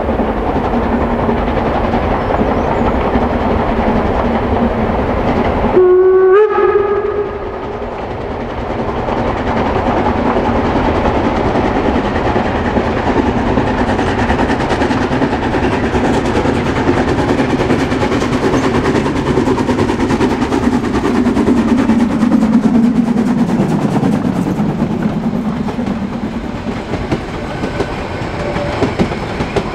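Narrow-gauge Harzquerbahn train running along the track, with a short whistle blast about six seconds in.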